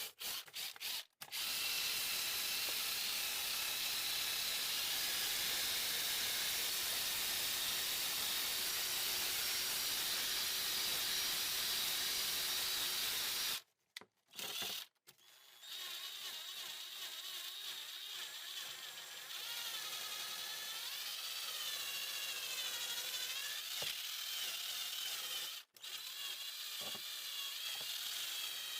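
Power drill running to scrub rust off a metal tool, a steady motor whine. It opens with a few short trigger bursts, stops for about two seconds midway, and cuts out briefly near the end, its pitch wavering up and down in the later part.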